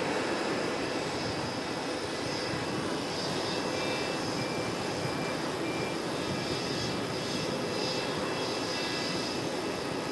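Jet airliner engines running with a steady rushing whine, and a swirling shimmer in the highs late on as the aircraft moves.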